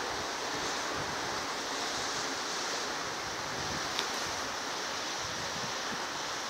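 Steady, even hiss with no distinct sound events, and a single faint click about four seconds in.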